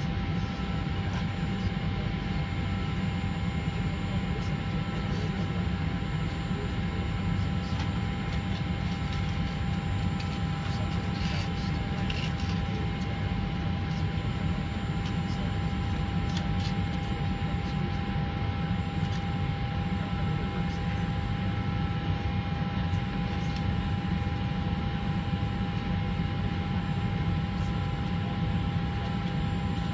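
Inside the cabin of a Boeing 737-400 taxiing: a steady low rumble from its CFM56 turbofan engines and airflow, with a few steady whining tones on top.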